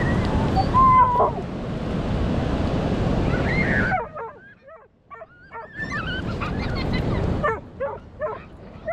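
Wind and surf rushing steadily. About four seconds in the rush drops away, and a dog whimpers and yips in many short, high cries that bend up and down in pitch, with gaps between them.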